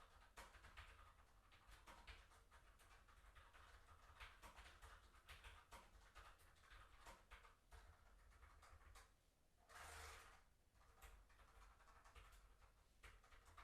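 Faint, irregular key clicks from typing on a Logitech MX Mechanical keyboard with tactile quiet switches, with a brief soft rustle about ten seconds in.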